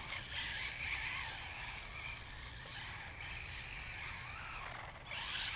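Small electric motor and gears of a 1/24-scale RC short-course truck whining as it drives on a paved road, mixed with the hiss of its small tyres, the pitch wavering with throttle.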